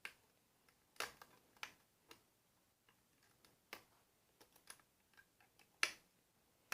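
Small, irregular metallic clicks and taps of a diamond lock pick and tension tool working the pin stack inside an Ilco lock cylinder as it is being single-pin picked. About ten scattered clicks, the loudest about six seconds in.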